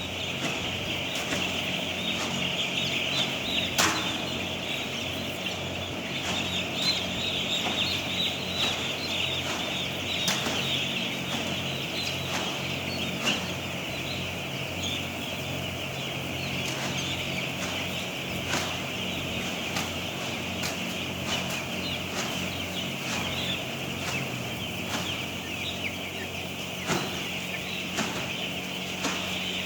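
A large flock of chickens in a poultry house calling continuously, a dense overlapping chatter of high calls, over a steady low hum with occasional sharp clicks.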